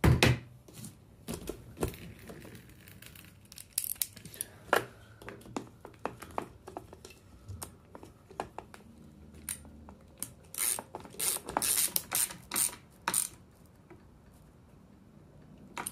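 Ratcheting socket driver clicking in short runs as the 7mm distributor-cap bolts are snugged down, the runs of clicks busiest in the last third. A single knock right at the start.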